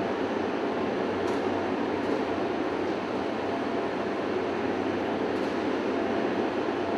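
Steady machinery noise running at an even level, with a few faint light clicks about a second in and again a little after five seconds.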